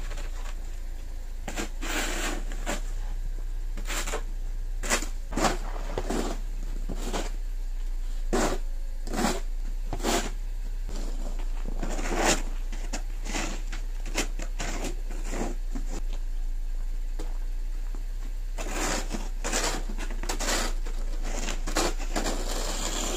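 Two plastic snow shovels scraping and pushing snow across a paved driveway: repeated rough scrapes at an uneven pace, roughly one every second, some overlapping.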